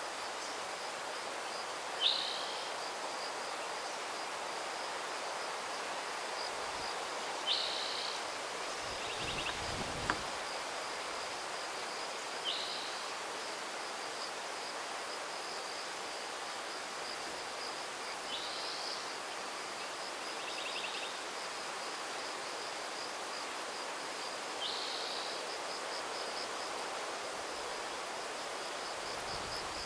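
A steady high-pitched insect trill runs throughout over a breeze in the oaks and brush. A bird calls five times with a short, sharply sweeping note, about every five or six seconds.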